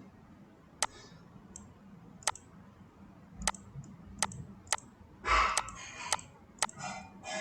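Computer mouse clicking: single sharp clicks, irregular and roughly a second apart, with a short rush of breathy noise about five seconds in.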